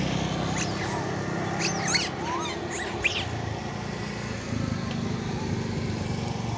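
Long-tailed macaques giving short, high-pitched squeals as they chase and squabble over food, several calls bunched in the first half. Under them a vehicle engine idles steadily.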